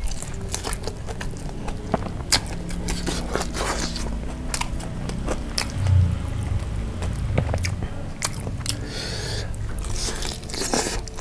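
Close-miked eating of sauce-coated fried chicken: bites into a drumstick and steady chewing, with many short, sharp crunches of the fried skin.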